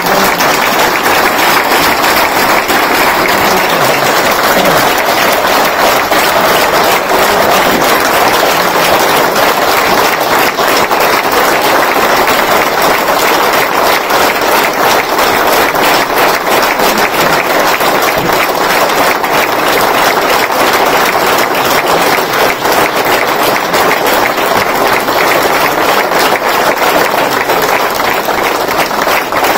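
Sustained applause from a large crowd of standing guests, many hands clapping in a dense, steady wash that keeps up without a break.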